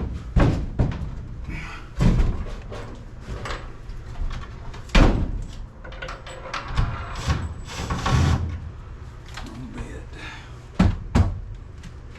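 Irregular knocks and bangs from work on a door, about ten separate impacts spaced unevenly, the loudest about five seconds in.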